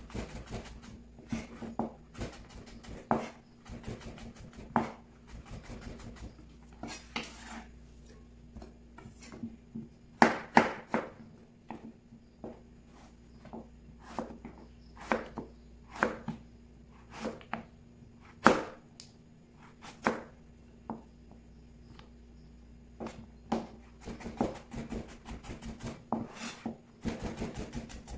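Knife cutting vegetables on a cutting board: irregular sharp knocks, a few louder strokes, and quicker runs of chopping near the end.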